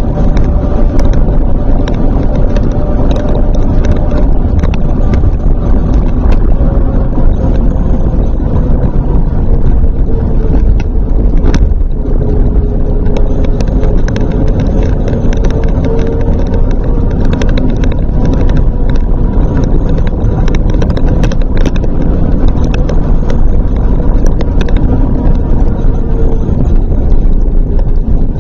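A vehicle driving at speed along a concrete runway: a loud steady rumble of tyre, road and wind noise, with a faint engine tone that drops in pitch about ten seconds in as the vehicle slows, and scattered short clicks.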